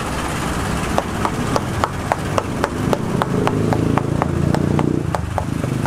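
A row of quick, even knocks, about four a second, over a low mechanical drone that grows louder from about three seconds in.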